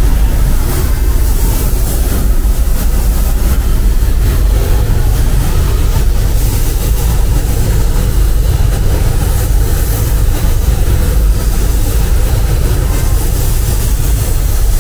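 Steady, loud, low-pitched mechanical rumble with an even hiss above it, unchanging throughout.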